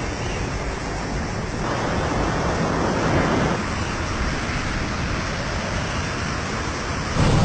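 Steady rush of wind noise from air streaming past the microphone in flight, swelling briefly about two to three seconds in.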